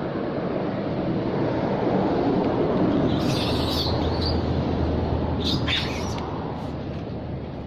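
Two short bursts of high-pitched animal calls, about three seconds and five and a half seconds in, over a rushing background noise that swells and fades.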